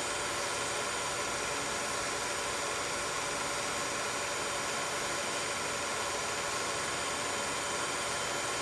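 16mm film projector running steadily: an even hiss from its fan and motor, with several faint steady tones on top.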